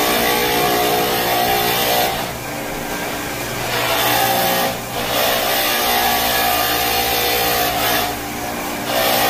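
Walk-behind floor scrubbing machine running steadily, motor whine with the hiss of its brushes and suction, as it scrubs old wax off an oak hardwood floor. The hiss eases off for a moment a few times while the whine carries on.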